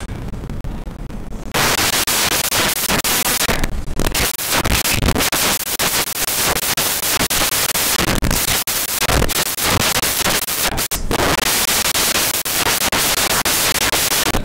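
Loud crackling, static-like noise, briefly dipping about four seconds in and again near eleven seconds.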